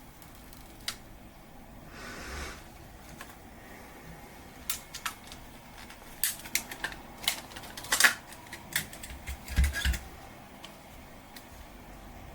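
Irregular sharp clicks and taps of small hard objects being handled, thickest in the middle and loudest about eight seconds in, after a brief rustle about two seconds in.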